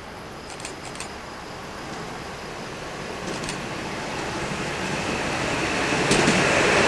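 A train approaching on the rails, its rumble growing steadily louder, with a few sharp clicks.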